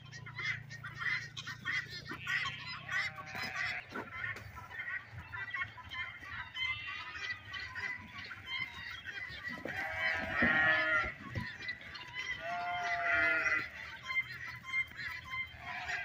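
Farm poultry calling over and over in short honking and clucking notes, with a few longer, louder calls about ten and again about thirteen seconds in.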